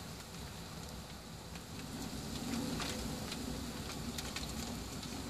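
Scattered raindrops ticking on a semi-truck cab's window and roof over a low steady rumble.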